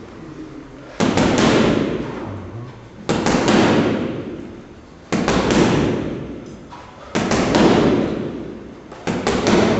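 Boxing gloves striking a heavy punching bag in quick bursts of several punches, five bursts about two seconds apart, each trailing off over a second or so. It is a speed drill: a fast series of punches, then a pause of a second or two.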